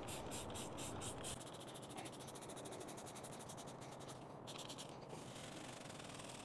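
Faint, rapid scrubbing strokes. They quicken about a second and a half in.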